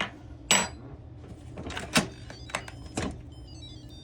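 Kitchen utensils knocking and clinking against a mixing bowl, about four sharp strikes with a short scrape before the second, while a spicy tuna filling is mixed. Near the end there is a faint falling run of high tones.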